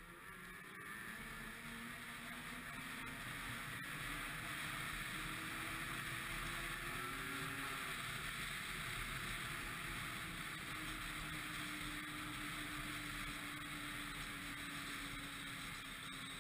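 Ski-Doo MXZ 600 XRS snowmobile running under way, its engine a steady rush with a faint pitch that bends slightly. It grows louder over the first few seconds, then holds steady.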